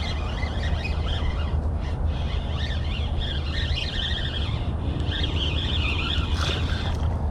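Birds chirping and calling in varied short phrases over a steady low rumble.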